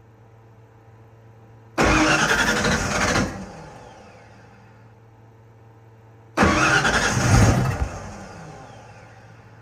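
Starter cranking the Ford F-150's 362 Windsor V8 twice, each time for about a second and a half, without the engine catching: a crank-no-start. A steady low hum runs between the attempts.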